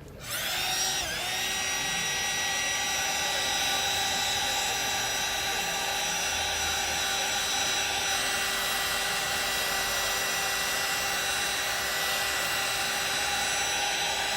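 A small electric motor starts, spins up over about a second and then runs at a steady whine over a hiss.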